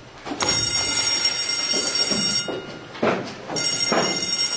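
A high, steady ringing tone with several overtones sounds in two spells of about two seconds and one and a half seconds, over the shuffling, scraping and footsteps of schoolboys getting up from their desks and walking.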